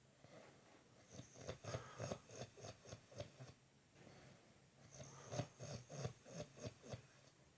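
A person in deep sleep snoring: two rattling snores of about two seconds each, separated by a quiet breath of about a second and a half.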